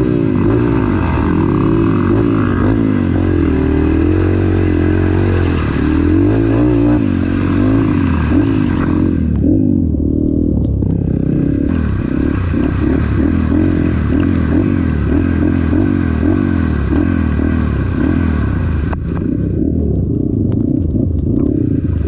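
Trail motorcycle engine under hard throttle, its revs rising and falling over and over, with a hiss and clatter over it that briefly drops away twice.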